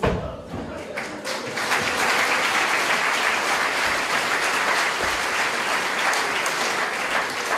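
Theatre audience applauding, building up over the first second or two and then holding steady.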